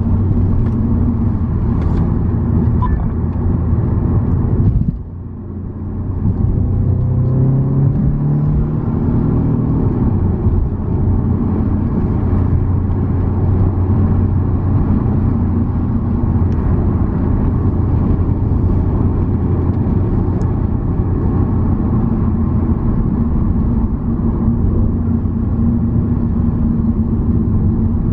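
Car engine and tyre noise heard from inside the cabin while driving. About five seconds in the sound briefly drops away, then the engine note rises as the car accelerates, and it settles into a steady drone.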